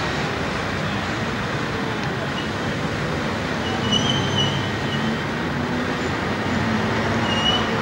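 Tram approaching along its track with road traffic passing, heard as a steady street rumble. Two brief high-pitched squeals, about four seconds in and again near the end.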